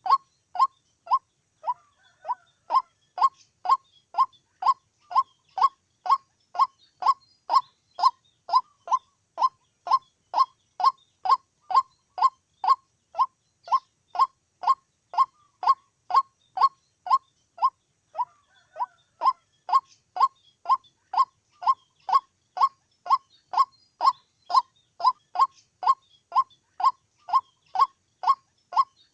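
White-breasted waterhen calling: one short note, falling slightly in pitch, repeated steadily about twice a second, with a brief break about two seconds in and again about eighteen seconds in.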